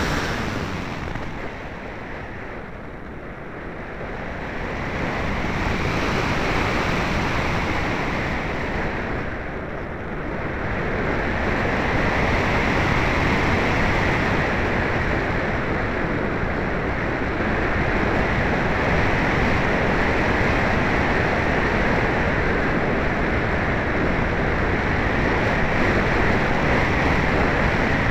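Wind rushing over the microphone of a small keychain camera mounted on a ParkZone Radian Pro RC glider in flight: a loud, steady rush that eases off briefly twice, a few seconds in and again about ten seconds in.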